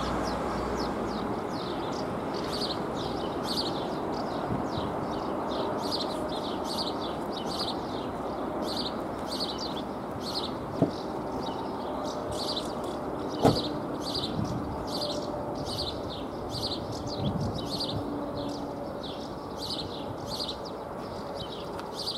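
Classic electric bell of an AŽD 71 level-crossing signal ringing steadily, about two strokes a second, while the crossing is closed, over a steady rushing rail noise. Two sharp knocks sound about eleven seconds in and, louder, a few seconds later.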